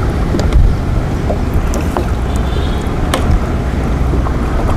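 Steady low rumble of a small boat out on a wide river, with wind buffeting the microphone and a few light knocks.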